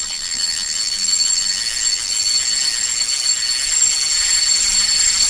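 A steady, high-pitched electric-bell-like ringing with a fast fluttering pulse, holding an even level throughout.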